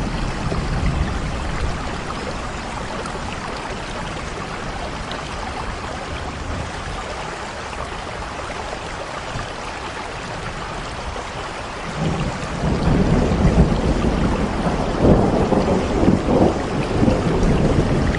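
Steady rain falling, with a low rumble of thunder rolling in about twelve seconds in and swelling in waves.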